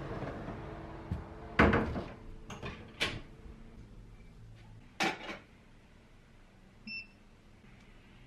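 A kitchen appliance's steady hum dies away, followed by several sharp knocks and clicks of doors or objects being handled, then a short electronic beep.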